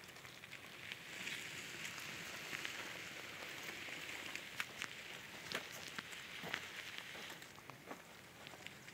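Faint crunching of footsteps on a gravel road, with scattered sharp clicks over a steady high hiss.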